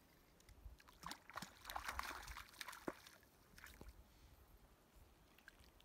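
A hooked trout splashing in shallow lake water as it is reeled in to the bank. The splashing starts about a second in and lasts about two seconds.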